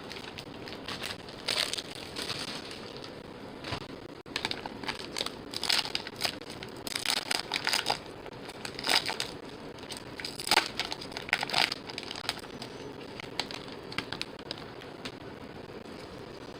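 Foil baseball card pack wrappers crinkling and tearing as packs are opened, in irregular bursts that are loudest in the middle and die down near the end.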